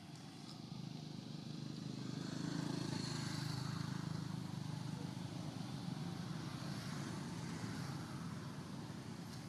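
A motor vehicle passing: a low engine rumble with a light hiss that swells over the first three seconds and then slowly fades.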